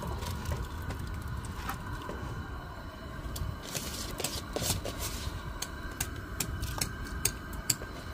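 Scattered light clicks and taps from a collapsible plastic colander being handled as rinsed rice is tipped from it into a pot, over a steady low rumble.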